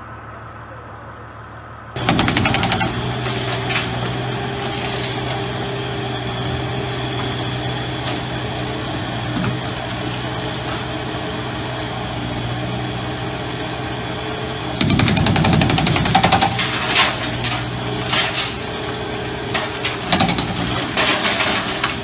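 Rapid, continuous hammering of a breaker hammer, starting abruptly about two seconds in over a low steady hum, and growing louder with extra irregular knocks and clatter from about fifteen seconds in.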